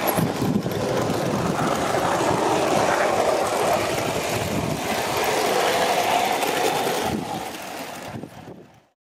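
Gauge 1 radio-controlled live-steam locomotive running, a steady rushing hiss of steam. It dies down about seven seconds in and cuts off abruptly just before the end.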